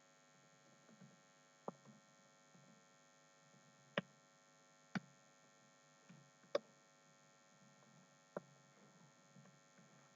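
Low steady electrical hum with about five isolated sharp clicks of computer keys being pressed now and then.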